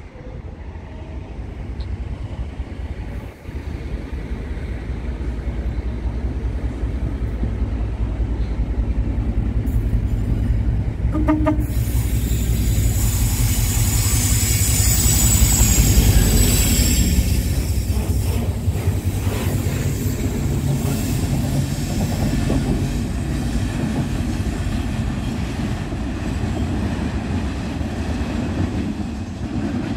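Class 56 diesel locomotive with a Ruston-Paxman sixteen-cylinder engine hauling a heavy rail crane past. A deep engine rumble builds as it approaches and is loudest about halfway through as it goes by, with a high wheel squeal while it passes.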